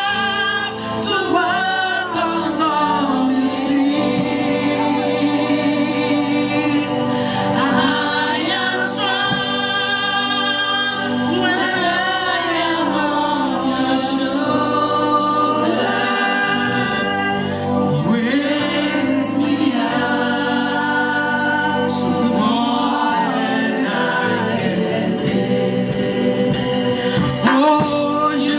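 Gospel choir singing a worship song, with sustained backing underneath.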